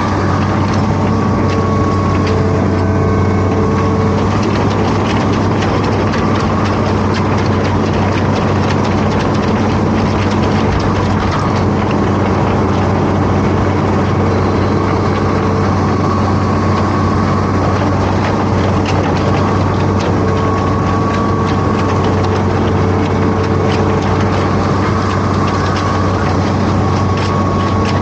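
Hitachi Zaxis 210F amphibious excavator's diesel engine running steadily with a deep drone, with a higher whine that comes and goes.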